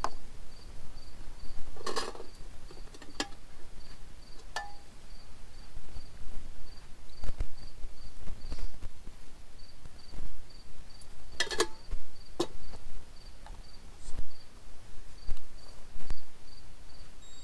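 An insect chirping at an even, steady pulse, about two and a half high chirps a second. A few sharp clicks and knocks sound over it.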